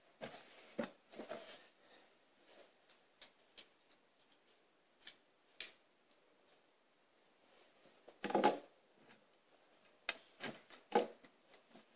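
Hands handling a plastic building-brick toy tank on a wooden table: scattered light clicks and taps, a louder rustling knock about eight seconds in, and a few sharper knocks near the end.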